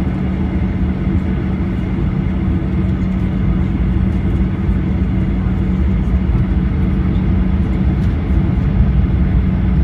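Steady airliner cabin noise inside a Boeing 737-800: the jet engines give a constant low rumble with a steady low hum running through it.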